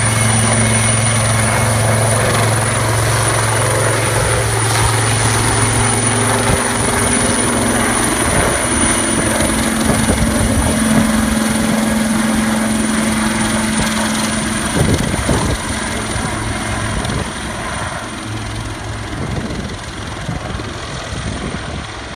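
Royal Navy helicopter's rotors and engines running at full power as it lifts off and flies away, growing fainter over the last few seconds.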